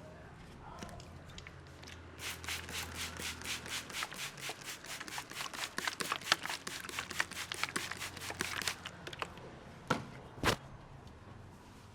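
Rapid tapping of hands on a head during a head massage, about six light strikes a second for several seconds. It stops, and then come two sharper, louder clicks.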